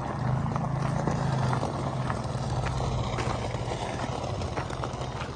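Ford Bronco two-door running at low speed through a newly fitted AWE single side-exit cat-back exhaust, a steady low exhaust note, with tyres crunching on gravel as it rolls past.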